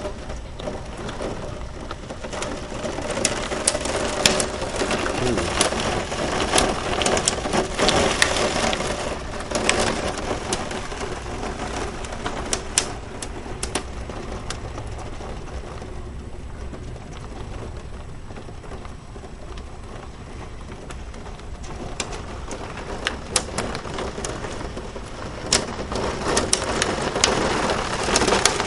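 Heavy rain pouring down with hail mixed in, the pellets striking in sharp ticks over the steady hiss. The downpour is heavier in the first third, eases around the middle and builds again near the end.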